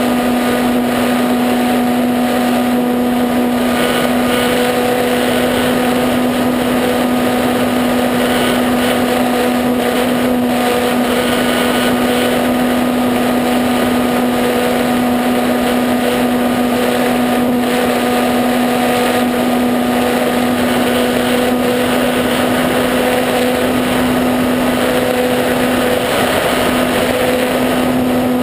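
E-flite Apprentice RC trainer plane's electric motor and propeller running at a steady pitch in flight, heard up close from on board, with wind rushing over the microphone.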